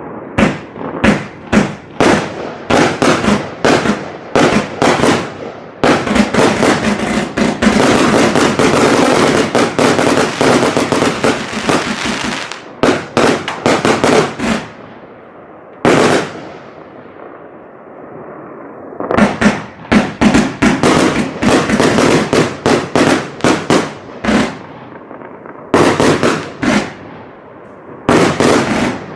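A 196-shot consumer firework battery with 25 and 30 mm tubes firing its shots one after another. A dense rapid run of shots lasts about six seconds, there is a pause of a few seconds past the middle, and then more volleys follow.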